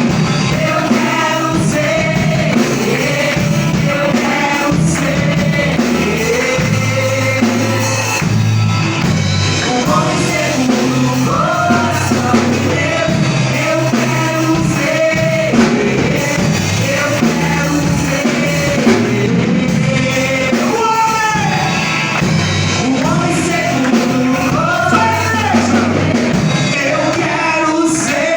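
A church praise band performing live: singing over bass and drums.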